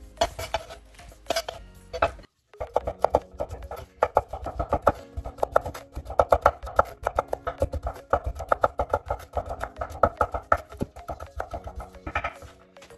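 Chef's knife chopping yard-long beans on a wooden cutting board: fast, closely spaced knocks, over steady background music. A short break comes about two seconds in, before the rapid chopping starts.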